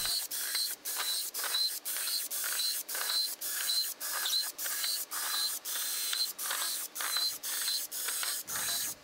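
Cordless drill boring holes into wooden box tops, running in short repeated bursts about two and a half times a second, each with a brief high whine.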